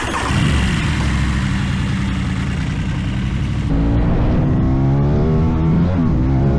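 Aprilia Tuono 660's parallel-twin engine running loud through an aftermarket Teen Top exhaust. It starts suddenly, and from about four seconds in the revs climb, drop sharply near six seconds as in a gear change, then climb again.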